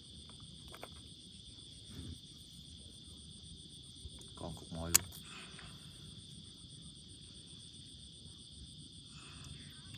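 Insects chirring steadily in a continuous chorus of several high, even tones. A single sharp click about five seconds in is the loudest sound.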